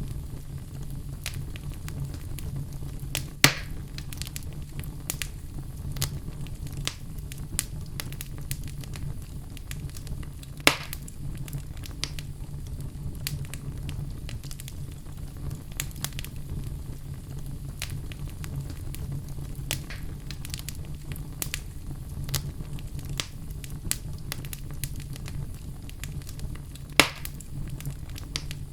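Wood fire burning in a fireplace: a steady low rush of flame with constant crackling of the burning logs, and three louder sharp pops, about three seconds in, about ten seconds in, and near the end.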